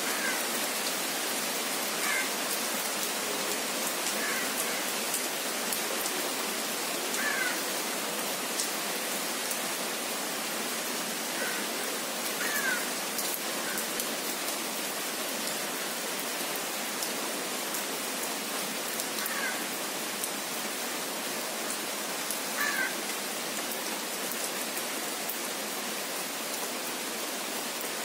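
Steady rain pattering on tree leaves and palm fronds, an even hiss that doesn't let up. A few short high calls, each falling in pitch, sound every few seconds.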